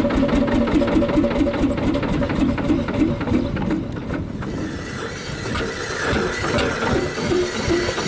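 The HSCS G-35 hot-bulb tractor's single-cylinder two-stroke semi-diesel engine running with rapid, even firing beats. The sharp beats die away about four seconds in, leaving a rougher, less regular engine sound.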